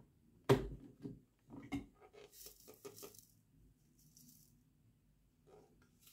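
Plastic blender jar knocked loose from its base with one sharp clunk, then handled and tipped, the shredded ping-pong ball fragments rattling and sliding around inside it.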